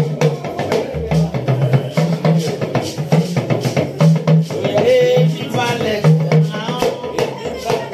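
Praise music with a busy drum and percussion beat, a repeating bass line and a singing voice.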